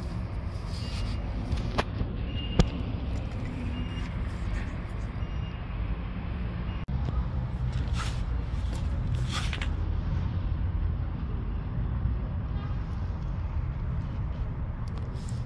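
Steady low outdoor background rumble, like distant traffic, with scattered small clicks and one sharp tap about two and a half seconds in.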